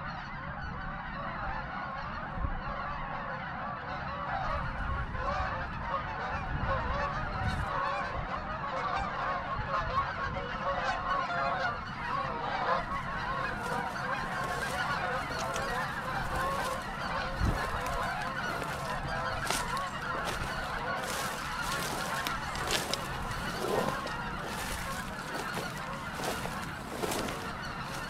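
A large flock of snow geese calling: a continuous din of many overlapping honks.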